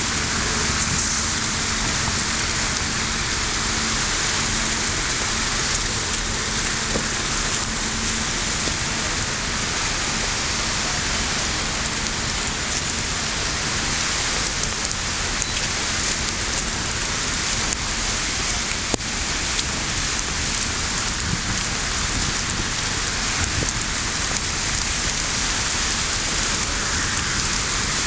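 Steady, even hiss of a snowstorm, like heavy rain, with no separate events standing out.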